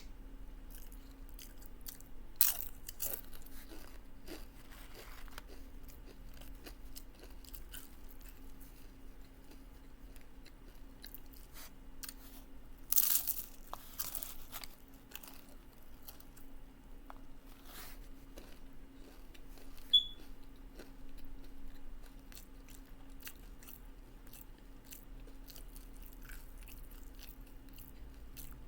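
Close-up chewing and crunching of tortilla chips with taco salad, with loud crunchy bites about 2.5 and 13 seconds in and a single sharp click about 20 seconds in.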